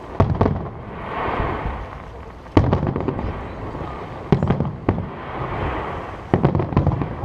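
Aerial firework shells bursting in a display: sharp bangs every second or two, some in quick pairs, each followed by a short crackling rattle.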